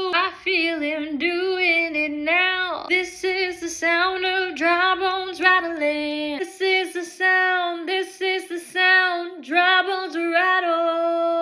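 A woman singing a worship song solo, with no instruments heard, moving through a sung phrase and settling into a long held note near the end.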